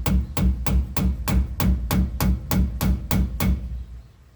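Plastic face of a soft hammer tapping steadily on a driver cup, about three blows a second, driving a new pinion seal into a differential housing; the tapping stops near the end.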